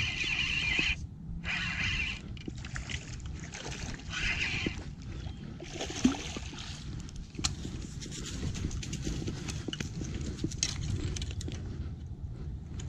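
Spinning reel being cranked in short whirring bursts as a hooked smallmouth bass is fought, the fish splashing at the surface about six seconds in, then water and rustling as it is brought in.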